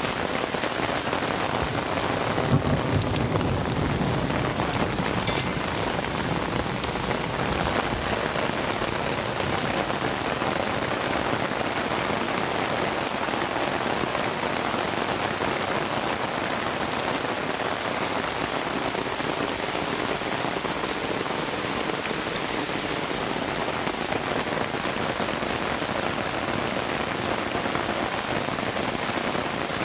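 Heavy rain falling steadily on the ground, a dense even hiss of drops throughout, with a brief low rumble about three seconds in.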